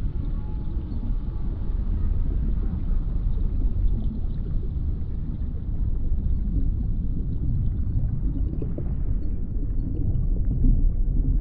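Underwater ambience: a steady deep rumble of water, as heard below the surface.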